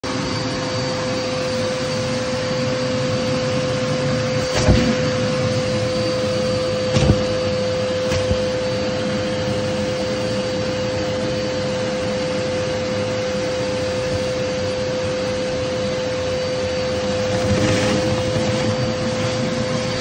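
Vacuum cleaner running steadily through a corrugated plastic hose: a constant rushing of air with a steady motor whine. A few short thumps come about five, seven and eight seconds in as rubber gloves and cloth are pulled against the hose mouth.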